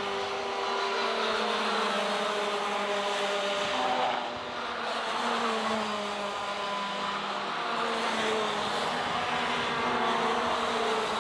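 Racing kart engines, high-revving two-strokes, buzzing around the track. Their pitch rises and falls as the karts brake and accelerate through corners, with more than one engine heard at once.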